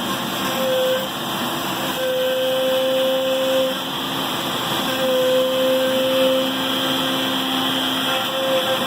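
Homebrew CNC router at work: the DeWalt router spindle and the vacuums for chip collection and the hold-down table run steadily. Over this, the stepper motors driving the axes on their lead screws give a pitched whine that comes and goes in stretches of one to two seconds as the axes move.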